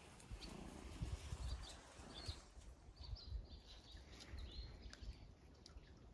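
Faint outdoor ambience: small birds chirping in the distance in short, high calls, over an uneven low rumble.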